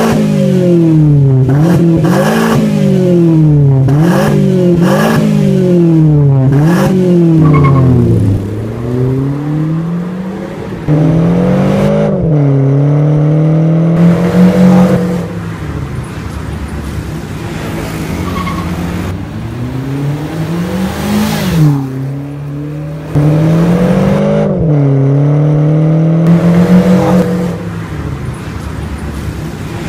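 2019 Mazda 2 engine through an aftermarket axle-back exhaust with twin tips, revved in quick blips about once a second for several seconds. It is then twice held at higher revs for a few seconds each, dropping back to idle in between.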